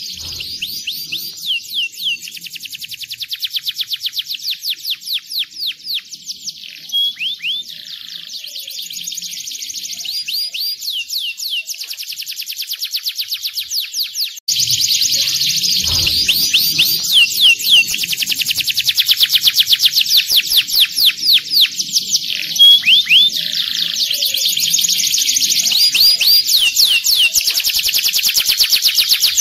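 Domestic canary singing: long runs of rapid repeated notes and trills, broken by quick chirps and short pauses. The song gets suddenly louder about halfway through.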